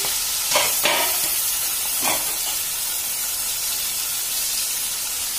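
Climbing perch pieces sizzling steadily as they fry in hot oil in an iron kadai, with a few brief knocks in the first two seconds.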